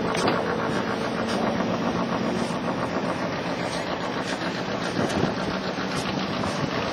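A vehicle engine idling steadily, with an even rapid pulsing and a low hum.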